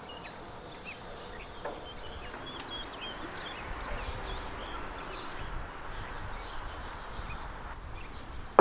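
Gas torch burning with a steady hiss as its flame is held into firewood in a wood stove's firebox, with small birds chirping throughout. A sharp knock comes at the very end.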